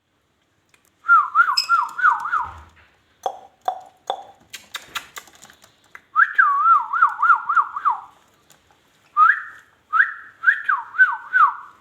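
Warbling whistle in three phrases, the pitch swooping down and back up about four times a second, with a few short clicks and chirps between the first and second phrase.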